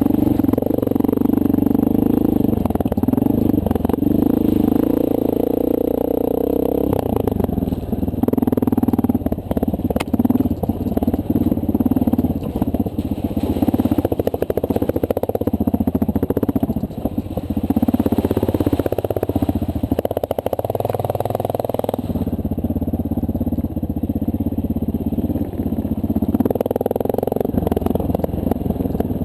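The air-cooled single-cylinder four-stroke engine of a 2009 Honda CRF230L dual-sport motorcycle running under way, its pitch rising and falling with the throttle. Rattles and knocks come from the bike over rough ground.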